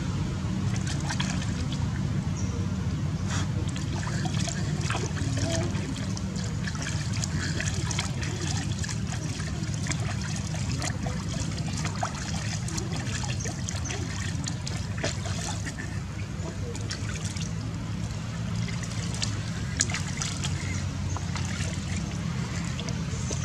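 Water trickling and splashing into a plastic basin as a baby monkey is washed by hand, over a steady low hum.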